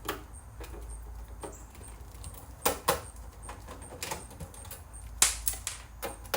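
Scattered sharp clicks and light knocks of a screwdriver and hands working on a VCR's cover as its screws are removed, the loudest in two quick pairs about two and a half seconds apart.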